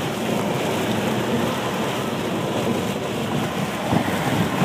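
Heavy rain on a moving car and its tyres on a flooded road, heard from inside the cabin as a steady noise, with a brief low knock near the end.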